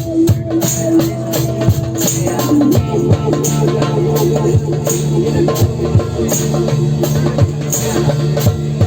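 Psytrance music from a live electronic jam: a steady driving beat with crisp high ticks over it and held tones that change about two and a half seconds in.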